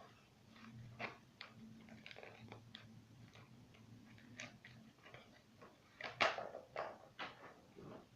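Scattered clicks and light rustling from handling toy packaging during unboxing, with a faint low hum in the first half and a louder run of clicks near the end.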